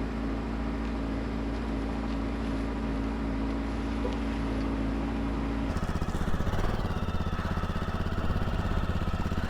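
Motorcycle engine idling steadily. About six seconds in the sound changes abruptly to a more evenly pulsing idle.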